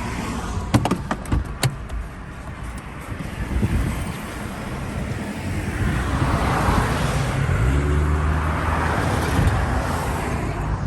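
Car running on the road, a steady engine hum and road noise as it slows to pull over, with a few sharp clicks and knocks about a second in.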